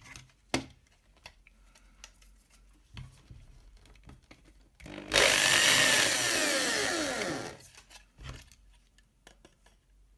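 Small electric drill boring out a hole in a plastic housing, running for about two and a half seconds from about halfway in, its pitch falling as it slows. A few short handling knocks come before and after it.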